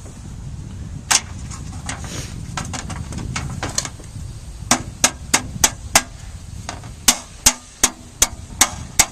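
Hammer blows driving fasteners through metal chimney flashing: a single strike, then two runs of quick, evenly spaced blows about three a second, over a steady low rumble.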